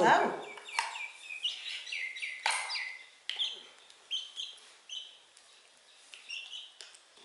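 Baby chicken peeping: repeated short high peeps, each sliding down in pitch, coming quickly in the first few seconds and more spaced out after.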